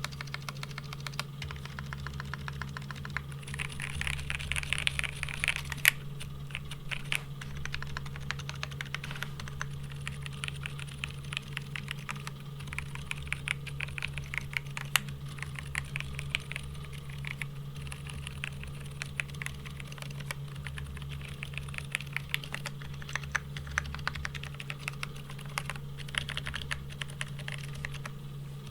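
Geonworks F1-8X V2 keyboard with factory-lubed Haimu x Geon yellow silent tactile switches on a brass plate and GMK Striker keycaps, typed on across letter and modifier keys. It gives fast runs of soft, muted key presses with a quicker flurry early on and one louder single strike about six seconds in. A steady low hum runs underneath.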